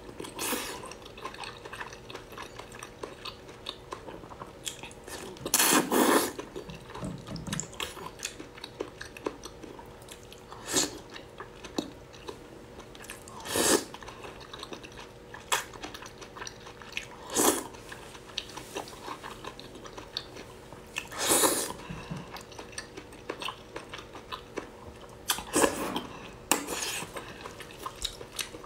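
Close-miked eating of saucy octopus tentacles: loud wet slurps every few seconds as the tentacles are sucked in, the loudest about six seconds in, with soft wet chewing and small clicks between them.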